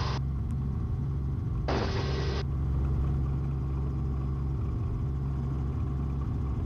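Robinson R44 helicopter in flight, diving away just after lifting off: a steady low drone of its rotors and piston engine. A brief burst of noise cuts in about two seconds in.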